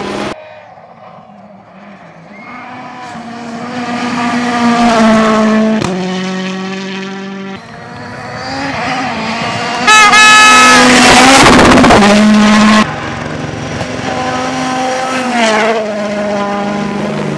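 Rally cars at full throttle on a gravel stage, in several cuts. Each engine note climbs and drops with gear changes, and tyres scrabble on the gravel. The loudest stretch runs from about ten to thirteen seconds in, as a car passes close.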